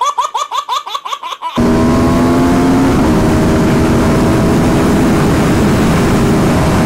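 A baby's laughter in short bursts, cut off about a second and a half in by an Aprilia RSV4's V4 engine running steadily at freeway speed, around 115–120 mph, under heavy wind rush. The engine note dips slightly at first, then holds steady.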